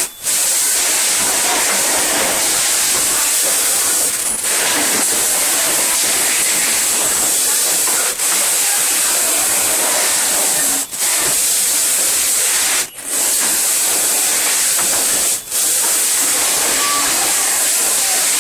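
Steady loud hissing noise of cup heat-transfer printing machines running on a factory floor. It is broken several times by brief, sudden dips in level.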